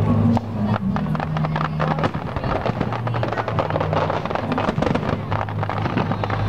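Fireworks display: many quick bangs and dense crackling from bursting shells, over loud music with held low bass notes that change pitch every second or so, the soundtrack of a pyromusical show.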